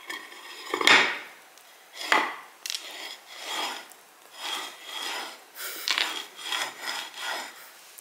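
A series of rough rubbing strokes, about a dozen at an irregular pace, the loudest about one and two seconds in.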